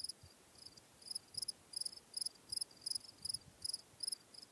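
A cricket chirping: a regular run of short, high chirps, about two to three a second.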